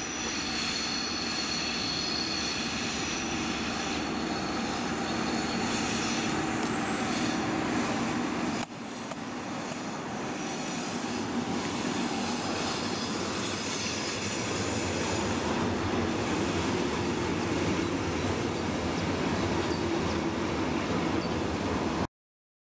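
DR class 114 diesel-hydraulic locomotive running past under load, its diesel engine running steadily over the rumble of the train's wheels on the rails. The sound dips briefly about a third of the way in and cuts off abruptly near the end.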